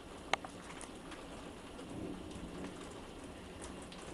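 Heavy rain falling steadily, with one sharp click about a third of a second in.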